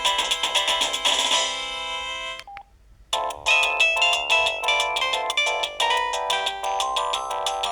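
Polyphonic melody tones played by a Samsung SGH-E330N mobile phone: one tune ends about two and a half seconds in, and after a brief pause another begins, a bright run of quick, separate notes.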